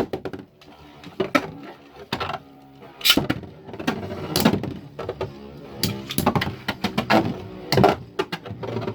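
Two Beyblade spinning tops launched with a sharp rip at the start, then spinning and clashing in the stadium: a steady whirring hum broken by many sharp clacks as the tops collide.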